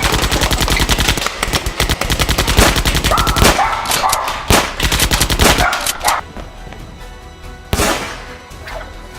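Rapid automatic blaster fire: a fast, even burst of shots for about three and a half seconds, then scattered single shots, with one more loud shot near the end.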